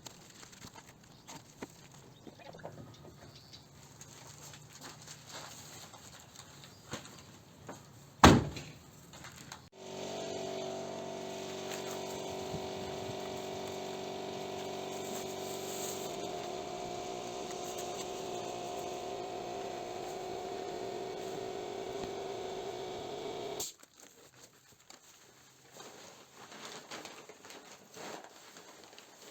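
Scattered light handling noises and one sharp knock, then a motor-driven machine switched on that runs steadily for about fourteen seconds with a constant hum and cuts off suddenly.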